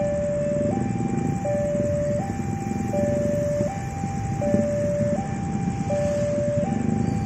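Railway level-crossing warning alarm sounding a two-tone signal, alternating evenly between a lower and a higher note about every 0.7 s: the crossing is closed for an approaching train. Motorcycle engines idling at the crossing make a steady low rumble underneath.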